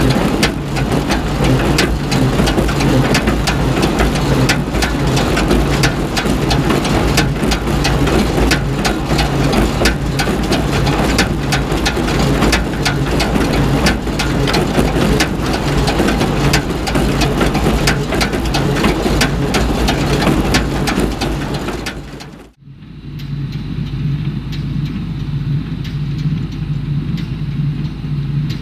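Hay baler heard up close at its pickup while gathering a windrow: a dense, crackling clatter of tines and hay over the steady hum of the tractor engine pulling it. About three-quarters of the way through the sound cuts to a quieter, more distant steady hum of the tractor and baler working across the field.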